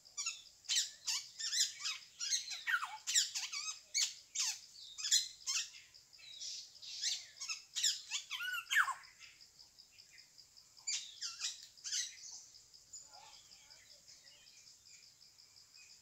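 Black-hooded oriole giving a rapid series of harsh, rasping calls, which stop about nine seconds in and return in a short group a couple of seconds later. The uploader holds that this is the bird's mating call, used to invite the male. A steady, high, pulsing insect hum runs underneath.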